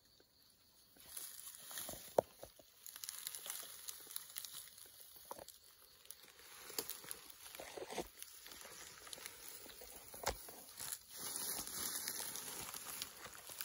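Footsteps and the rustle of legs and gear pushing through tall dry grass and brush, starting about a second in, with a few sharp snaps along the way.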